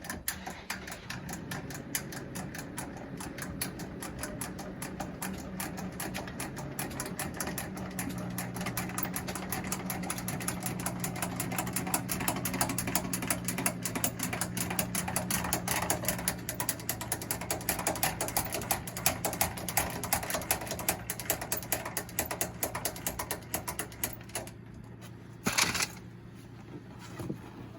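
Travel trailer's tongue jack lowering the trailer onto the truck's hitch ball: a steady mechanical whir with fast, even gear clicking that stops about 24 seconds in, followed by a single knock about a second later.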